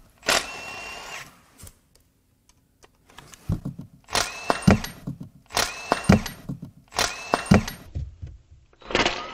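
Compact cordless driver backing out the spring-loaded timing-chain tensioner of a BMW B38 three-cylinder engine, in five short runs. Each run is a high motor whine with knocking that winds down at the end. The last run, near the end, is lower-pitched.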